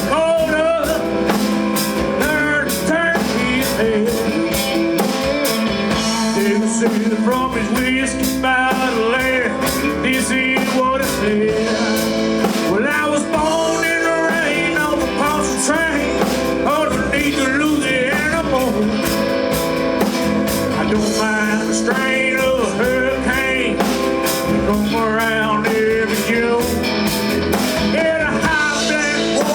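A band playing a rock-blues song, with guitar and drums keeping a steady beat.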